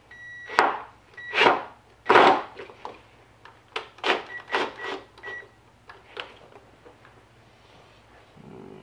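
Cordless drill driving a bolt into a plastic toboggan base in short bursts of the trigger: a high motor whine with rattling from the bit, which is not seating well in the bolt head. The bursts come close together at first, then shorter and further apart, and stop about six seconds in.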